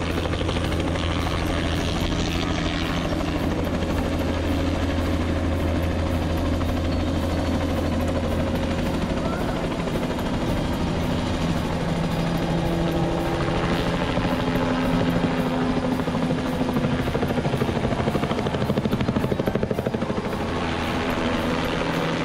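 Light helicopter running loud, with a fast, steady chop from the rotor blades, as it lifts off from a pad and climbs away. The low engine and rotor tone shifts about nine seconds in.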